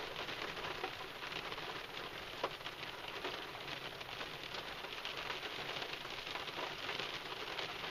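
Rain pattering steadily in a fine crackle of drops, with one sharper click about two and a half seconds in.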